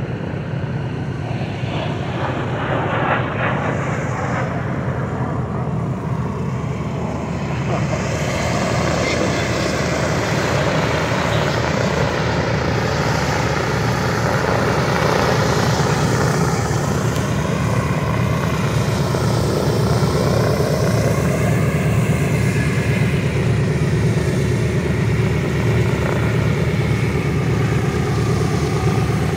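Boeing B-17 Flying Fortress taxiing on its four Wright Cyclone nine-cylinder radial engines, a steady deep drone with a propeller beat. It grows louder about eight seconds in as the bomber draws closer, then holds.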